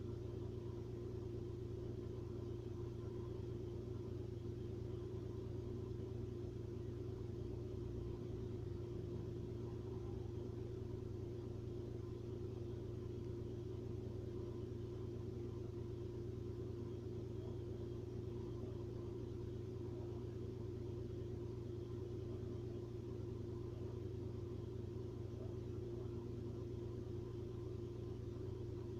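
A steady low hum and rumble that holds level and pitch without a break.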